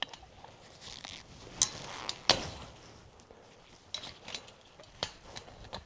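Scattered sharp metallic clinks and knocks, about ten in all, from handling the wire and fittings of an old sheep fence being torn down.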